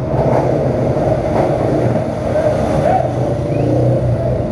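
Motorcycle engines running inside a parking garage.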